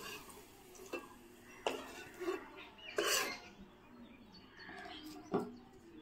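Metal spatula and utensils knocking and clinking against an iron wok and small metal bowls: a handful of separate sharp clinks spread through, with quiet between.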